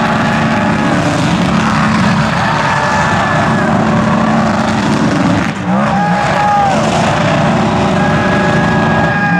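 Cadillac V-Series.R GTP race car's V8 engine held at high revs, a steady loud note with a brief dip and quick rev about five and a half seconds in.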